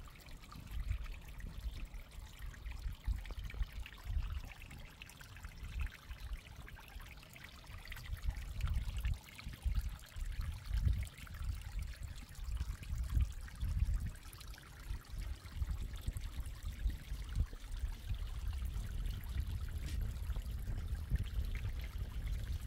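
Shallow stream trickling over stones, with uneven low gusts of wind rumbling on the microphone.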